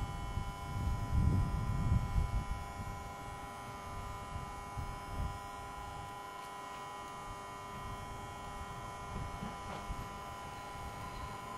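Wind buffets the microphone in gusts for the first couple of seconds, over a steady hum made of several held tones that does not change.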